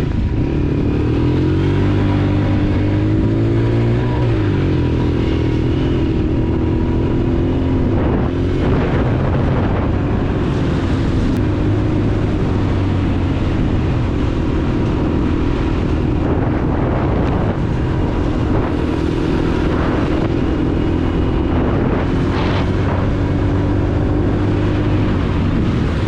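Honda TRX90 ATV's small four-stroke single-cylinder engine running while riding, its pitch rising and falling with the throttle in the first few seconds, then holding fairly steady.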